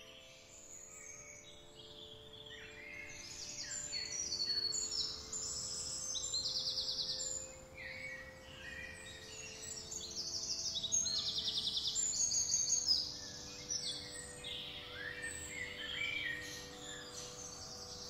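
Mixed chorus of several wild birds chirping and calling, with fast repeated trills that are loudest about a third of the way in and again around two-thirds through, over a faint steady drone of held low tones.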